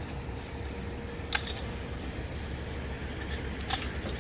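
Metal fishing gear being handled, a fish grip and a large treble-hooked topwater lure, with two sharp clicks, one about a second in and one near the end, over a steady low rumble.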